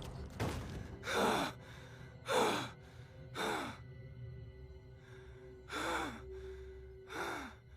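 A man breathing hard with ragged gasps and sighing breaths, about six of them spread out, several voiced and falling in pitch, with a faint steady tone underneath.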